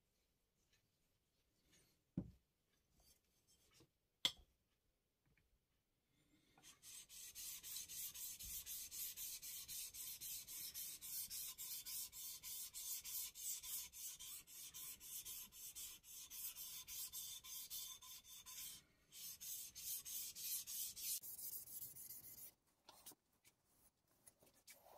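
Flat side of a deba knife's blade rubbed back and forth on a wetted Shapton Glass 1000-grit whetstone to polish the shinogi line: a rapid, even run of hissing, scraping strokes, with a brief pause partway. Two sharp knocks come a few seconds before the strokes begin.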